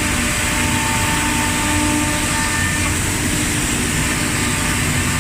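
CNC wood milling machine running steadily: a constant dense machine noise with a few held whining tones.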